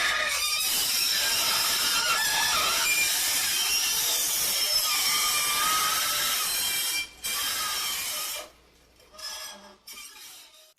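Hot metal being cooled rapidly: a loud hiss laced with wavering, gliding metallic squeals and screeches as the metal contracts. It cuts out briefly about seven seconds in, then drops away sharply about a second later, leaving fainter scraps.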